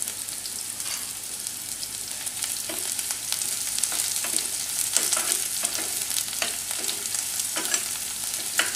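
Chopped onion and curry leaves sizzling in hot oil in a small nonstick frying pan, with a spoon stirring them in short, irregular strokes: a tempering (tadka) frying toward golden.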